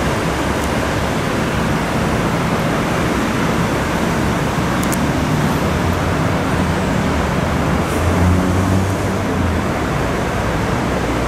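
Engine of a rail track maintenance vehicle running as the machine moves slowly along the track: a steady low rumble over constant hiss, swelling briefly about eight seconds in.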